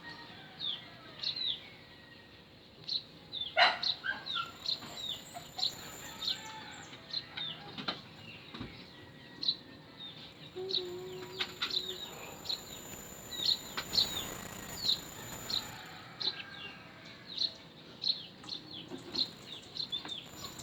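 Birds chirping, short high calls repeating several times a second throughout, with a few sharp knocks, the loudest about three and a half seconds in.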